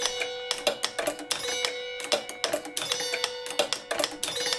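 Experimental mechanical music from a homemade contraption built around a spinning turntable: a quick, irregular patter of plucked notes and clicks over one steady held tone.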